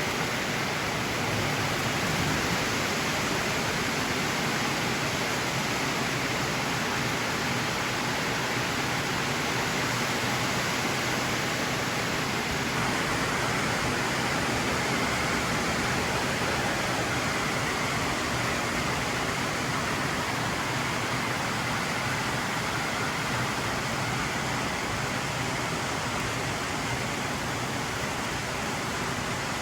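Steady rain drumming on a tin roof, an even hiss with no let-up.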